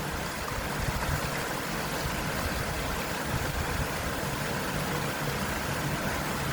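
Steady rush of water from a small waterfall, with motorcycle engines running low beneath it.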